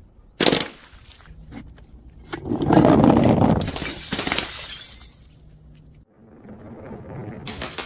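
Glass bottles smashing: a sharp crack about half a second in, then a bigger crash about two and a half seconds in, with shattering glass trailing off over the next couple of seconds.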